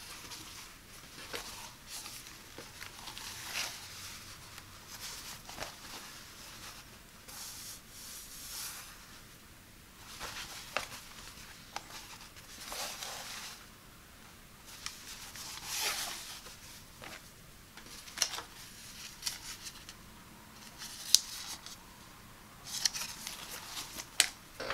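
White cotton kitchen towels handled close up: unfolded, rubbed between the fingers and flapped, giving repeated soft swishing and rustling of fabric with a few sharp snaps, the loudest near the end.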